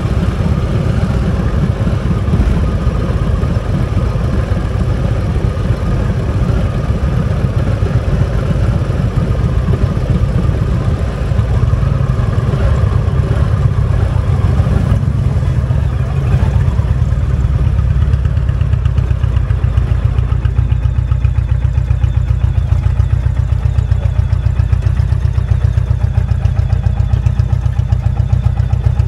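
Harley-Davidson Heritage's V-twin engine idling with a steady, fast low pulse, a little louder from about eleven seconds in.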